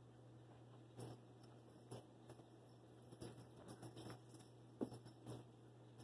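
Faint, irregular patter and soft thumps of a West Highland White Terrier's paws scrambling over carpet and a rug as it chases a feather wand toy, with one louder thump just before five seconds in, over a low steady hum.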